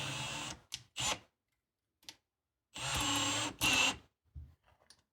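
Cordless drill driving screws in short runs of motor whine: one run ending about half a second in, a brief blip, then another run of about a second near the middle, followed by a few faint clicks.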